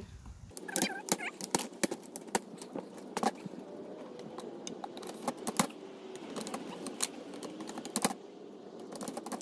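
White vinyl picket fence parts being snapped together by hand: an irregular string of sharp plastic clicks and taps as the pickets are pressed into the rails.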